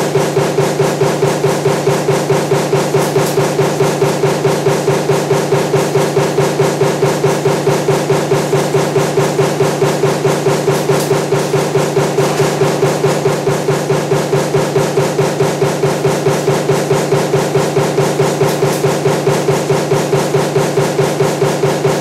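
Power press running continuously with a table fan motor stamping die, striking in a steady rhythm of about three strokes a second over a constant machine hum.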